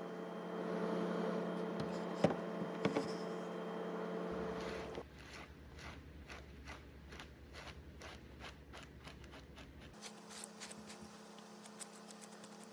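A microfibre dusting wand brushing over refrigerator coils and a vent grille: repeated scratchy swishing strokes, about three a second in the middle stretch, with a few sharp clicks of the wand knocking the metal early on, over a steady hum.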